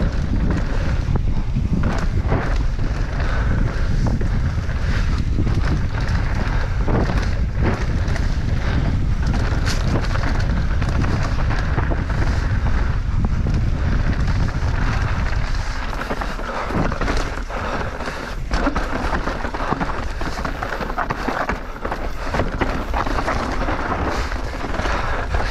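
Mountain bike ridden fast downhill on a dirt and rock trail, heard from a bike- or rider-mounted camera: wind buffeting the microphone, tyres rolling and crunching over dirt and loose stones, and frequent knocks and rattles as the bike hits bumps. About two-thirds through, the low wind rumble eases and the gritty tyre noise comes forward.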